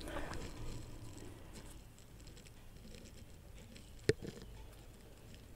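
Faint rustling and handling of a fresh spinach leaf between the fingers, with scattered small ticks and one sharp click about four seconds in.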